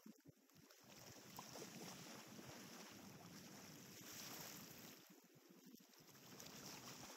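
Near silence: faint beach ambience, a soft, even rush of light wind and small waves that swells for a few seconds in the middle.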